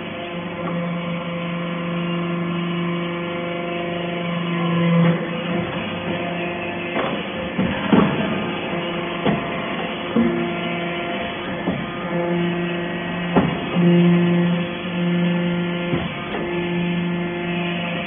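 Hydraulic briquetting press pressing stainless steel chips: a steady pump hum that swells and drops in stretches as the press cycles, with several sharp knocks along the way.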